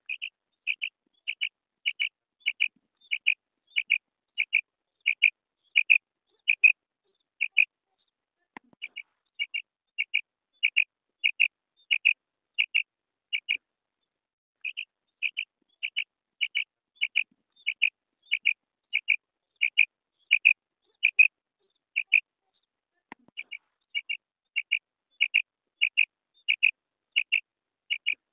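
Female common quail calling: a steady series of short, high notes, about one and a half a second, in runs broken by three pauses of about a second.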